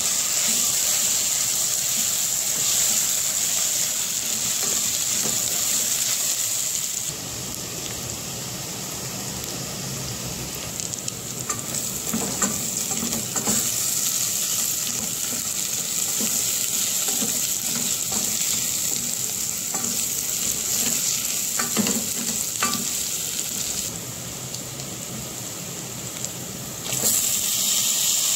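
Sliced onions sizzling as they fry in oil in a pressure cooker, stirred with a wooden spatula that scrapes and knocks against the pot now and then.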